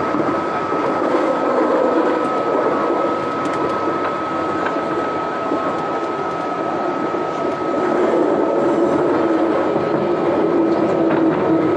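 Scarborough RT train, an ICTS Mark I driven by linear induction motors, running at steady speed. It gives a continuous rumble of wheels on the track with one constant high whine over it.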